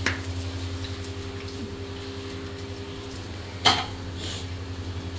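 Kitchen dishes and utensils clinking: a click at the start and a louder clatter about three and a half seconds in, over a steady low hum.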